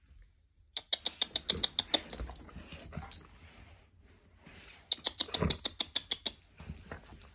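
Quick, irregular clicking and scuffling from a pit bull and its puppies playing on a bed. It comes in two spells, from about one second in until about three seconds, and again around five to six and a half seconds in.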